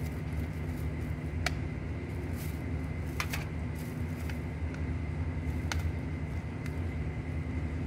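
A few sharp clicks as a screwdriver works a screw out of a car side mirror's plastic housing, over a steady low mechanical hum.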